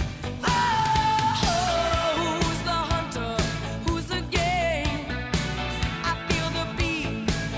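Pop-rock song with a sung vocal melody over drums and bass, playing as background music.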